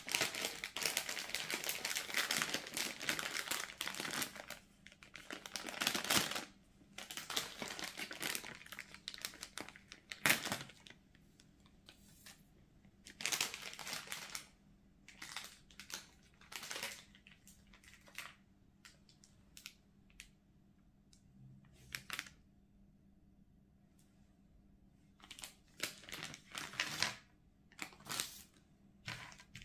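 Plastic candy packaging crinkling as it is handled: a dense stretch of rustling for the first six or seven seconds, then scattered short crinkles, with a longer flurry near the end as the wrapped candies are tipped out.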